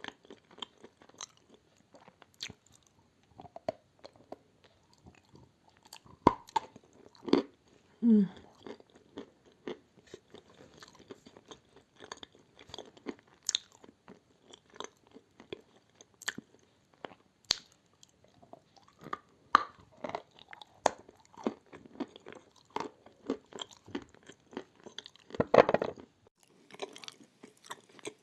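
Close-up crunching and chewing of edible clay tiles coated in white chalk paste: a steady run of sharp, brittle crunches, with one louder bite near the end.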